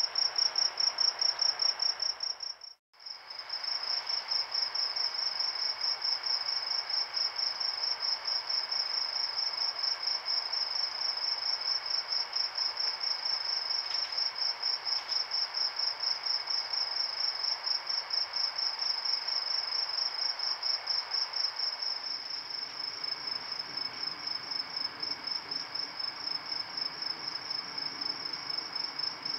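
Crickets chirping at night in a steady, fast, even high-pitched chirp of a few chirps a second. The chirping breaks off for a moment about three seconds in.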